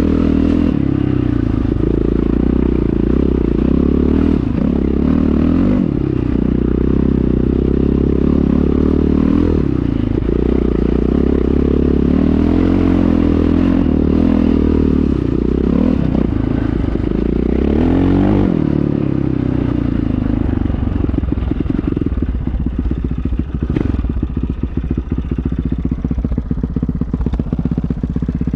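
1997 KTM 620 LC4's single-cylinder four-stroke engine through an Akrapovic exhaust, revved up and down several times. About two-thirds of the way in it drops back to an uneven idle with each firing pulse distinct.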